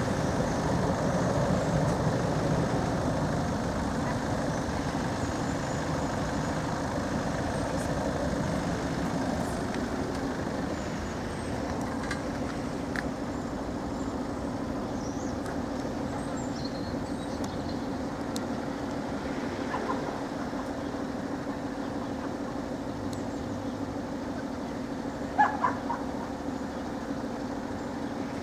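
Road traffic at a level crossing: a low engine rumble of heavy road vehicles that eases off over the first ten seconds, over a steady hum. A brief sharp clack comes near the end.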